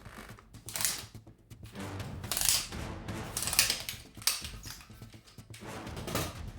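Background music with several short, sharp clicking or rattling noises over it, about a second apart.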